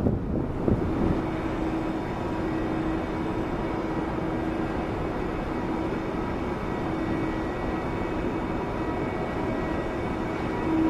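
EP20 electric locomotive moving slowly with a double-decker passenger train: a steady running noise with a held humming tone that gets louder near the end.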